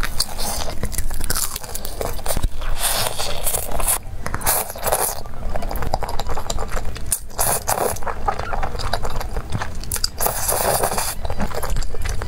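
Close-miked eating: crunching bites into crispy breaded fried chicken, and chewing and slurping of thick sauced noodles, in dense clicky bursts throughout.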